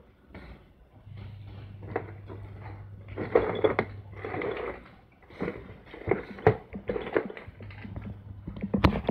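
Scattered clicks and short rustling noises, as of handling, over a low steady hum that drops out about four seconds in and returns near the end.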